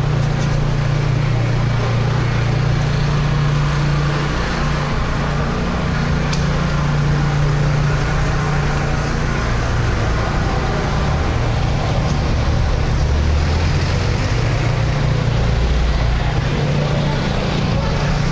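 Road traffic: a motor vehicle's engine running with a steady low hum over general city street noise. The hum drops lower for a few seconds around two-thirds of the way through.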